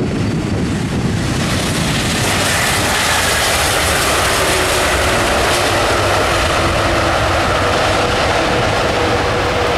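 Airbus A330-300 jet airliner's engines running loud as it rolls out along the runway after landing. The noise swells about two seconds in and holds, with a steady whine over it. Wind rumbles on the microphone.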